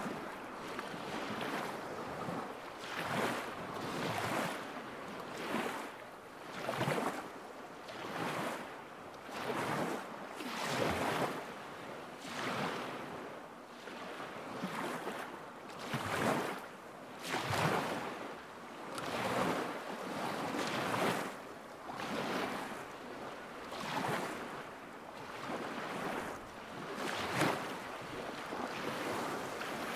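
Small lake waves lapping at the shore in an even rhythm, a soft splash every second or two.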